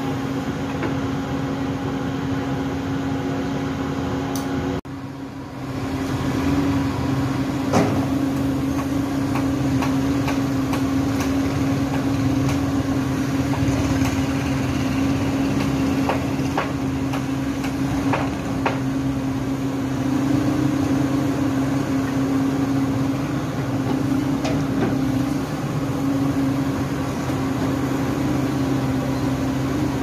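SANY SY135C crawler excavator's diesel engine running at a steady drone as it digs, with scattered knocks as it works the dirt. The sound drops out briefly about five seconds in, then picks up again.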